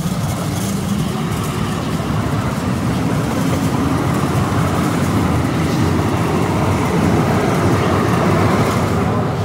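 Calgary CTrain light-rail train (Siemens U2 cars) running past close alongside the platform: a loud, steady rush of train noise that eases off right at the end.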